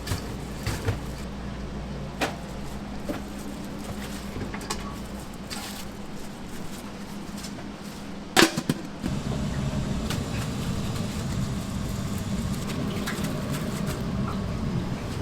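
Kitchen work sounds over a steady machine hum: scattered light clicks and knocks, one sharp loud knock about eight seconds in, after which a steadier rushing noise takes over.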